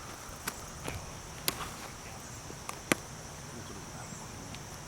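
Steady high-pitched insect drone, with about five sharp clicks over it, the two loudest about one and a half and three seconds in.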